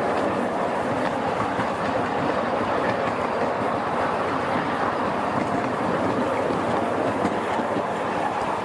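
Ground-level miniature railway train, hauled by a small steam locomotive, running along the rails as heard from the passenger car behind it. The wheels on the track make a steady, even running noise.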